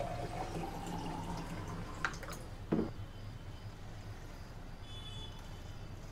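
Water pouring from a plastic jug into a glass tumbler, its note rising as the glass fills, until the pour stops about two seconds in. A light clink follows, then a dull thump as the jug is set down on a table.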